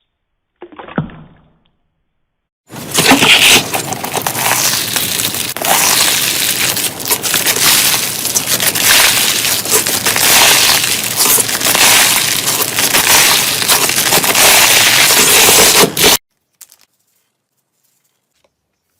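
Crunchy slime being squeezed and worked by hand: loud, dense crackling and crunching that starts a few seconds in and cuts off suddenly near the end.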